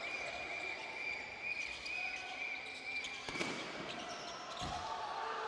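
Live game sound from a basketball arena: crowd noise with a ball bouncing on the court. A high steady tone runs through the first three seconds and then stops, and there is a knock soon after.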